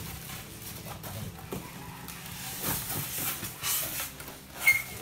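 Polystyrene foam packing and cardboard rubbing and scraping as a foam block is worked out of a TV carton, louder in the middle, with a short sharp squeak near the end.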